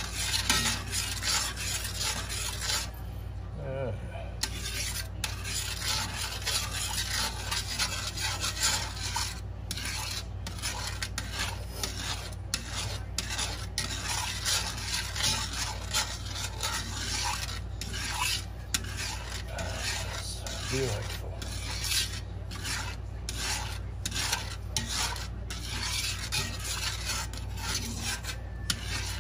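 Metal tongs scraping and stirring around the bottom of a cast-iron skillet through a thin sauce: a continuous rasping made of many short, irregular strokes, over a steady low hum.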